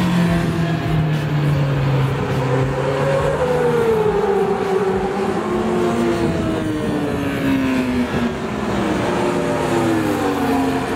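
Racing motorcycle engines at full throttle as superbikes pass on the circuit, several engine notes climbing and falling in pitch, with another rising near the end.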